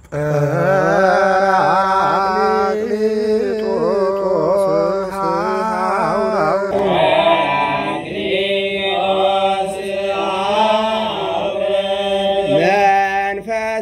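A solo man's voice chanting an Ethiopian Orthodox hymn in Ge'ez, holding long drawn-out notes with wavering melismatic ornaments. The voice turns brighter and louder about seven seconds in and breaks briefly near the end.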